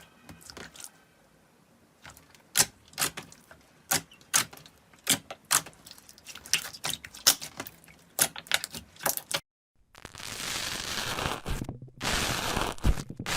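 Slime being squeezed and pressed by hand, giving a string of sharp, separate clicks and pops; after a brief silence about nine seconds in, a dense, continuous crackling takes over.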